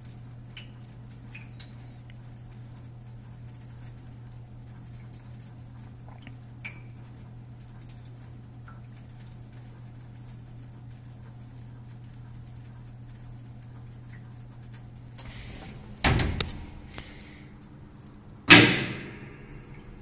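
A Hobart commercial dishwasher's steady hum cuts off about three-quarters of the way through. A few sharp metal clunks follow, then one loud metallic slam that rings out near the end, typical of the machine's stainless door being worked.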